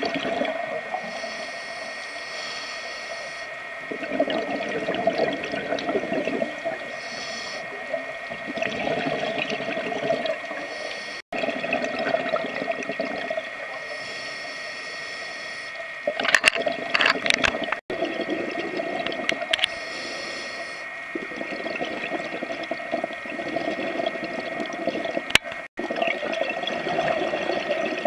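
A scuba diver breathing through a regulator as heard by an underwater camera: a hissing inhale every several seconds, then the bubbling, gurgling rush of the exhaust bubbles. A thin steady tone runs underneath, with a short burst of crackles about two thirds through, and the sound drops out briefly three times.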